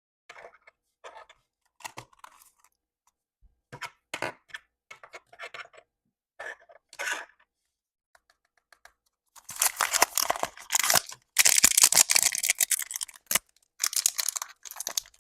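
Blind-box pin packaging being handled, with scattered light crinkles and taps. About nine and a half seconds in, a loud stretch of tearing and crinkling begins, and another follows near the end.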